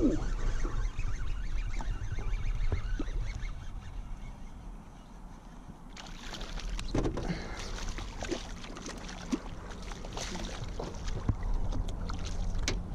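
Hooked bass splashing at the surface beside a small boat as it is reeled in and landed by hand, with sharp splashes and water noise from about six seconds in.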